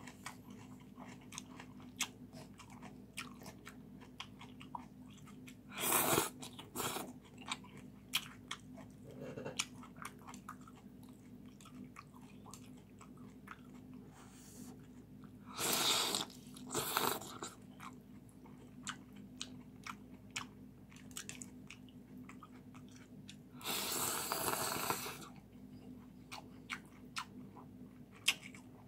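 A person eating rice-noodle soup close to the microphone: chewing, with many small clicks of chopsticks and a ceramic spoon against the bowl, and three louder slurps of noodles spread through, each about a second long.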